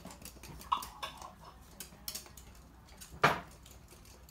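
Toy poodles' claws clicking and pattering on a hard floor as they run, with one loud, short, sharp sound about three seconds in.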